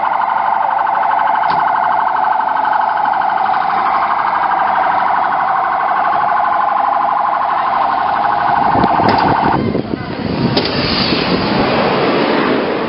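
Police vehicle siren sounding a fast-pulsing electronic tone. It cuts off suddenly about nine and a half seconds in, giving way to a loud rushing noise.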